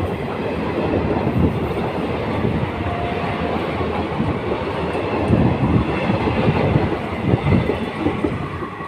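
Passenger train coaches rolling past, with a steady rumble of wheels on the rails and repeated clattering knocks.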